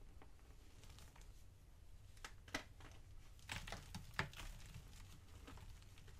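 Gym chalk crumbling and crunching as bare hands squeeze and break it apart. It is quiet, with a few crisp crackles about halfway through and a denser cluster a second or so later.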